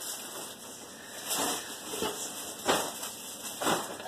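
Tissue paper and a paper gift bag rustling and crinkling as a present is pulled out, with several sharp crinkles.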